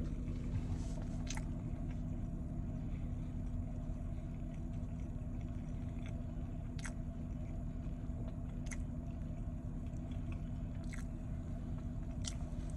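A person chewing a soft fish sandwich with the mouth closed, with a handful of short mouth clicks, over the steady low hum of a car interior.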